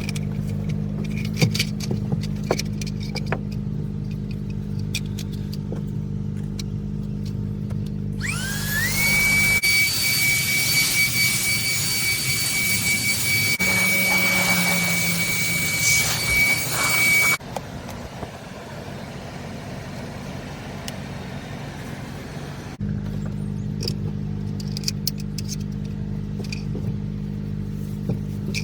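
Baseus A3 cordless handheld car vacuum's motor: about 8 seconds in it spins up with a rising whine, then runs at full suction with a steady high whine and a rush of air. It cuts off suddenly about 17 seconds in. Before and after it there is a steady low hum with scattered light clicks.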